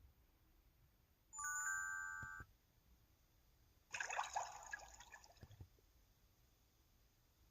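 Two short mobile-phone slide-open effect sounds played back one after the other. About a second in comes a brief electronic chime of steady tones lasting about a second. About four seconds in comes a watery, bubbly sound with gliding pitches that fades out over about a second and a half.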